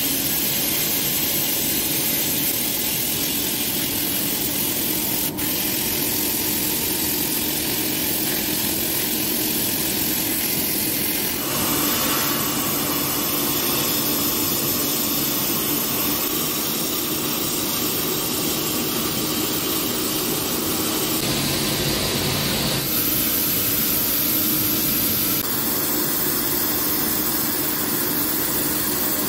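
Sandblasting cabinet's blast nozzle spraying abrasive on compressed air against a rusty iron pickaxe head, a loud steady hiss that strips the rust to bare metal. The tone changes abruptly a few times.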